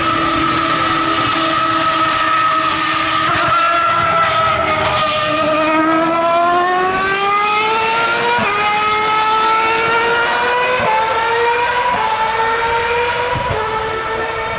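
A 2013 Formula One car's 2.4-litre V8 engine at high revs. It holds steady, falls to its lowest pitch about 5 seconds in, then accelerates, and the pitch drops briefly at each upshift, about 8.5, 11, 12 and 13.5 seconds in.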